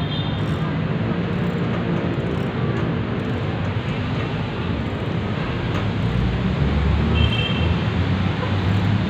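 Steady road traffic noise.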